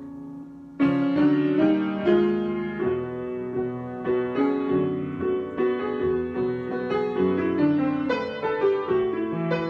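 Solo piano improvisation: a held chord dies away, then a little under a second in a louder passage of chords and moving notes begins and carries on.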